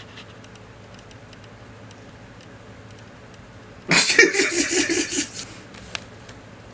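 A person laughs about four seconds in: a loud run of quick pulses lasting about a second and a half, over a low steady hum.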